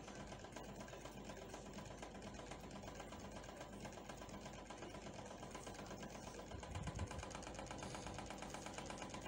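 Faint, steady mechanical hum with a fast, even flutter, with a soft low thump about seven seconds in.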